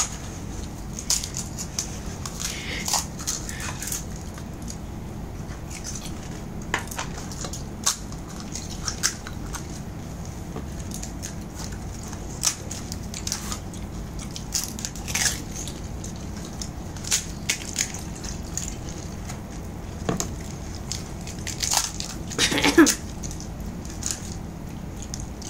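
Crisp fuchka (pani puri) shells being cracked open and crunched while eaten in a hurry: scattered sharp cracks and crunches over a steady low hum.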